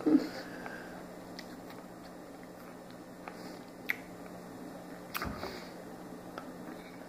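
Faint, scattered clicks and small taps of handling, the sharpest about four and five seconds in, over a steady low hum.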